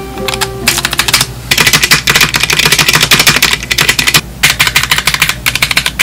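Fast typing on an Akko Sakura Jelly 3087 pink tenkeyless mechanical keyboard: a rapid stream of key clacks with a short pause a little after four seconds in.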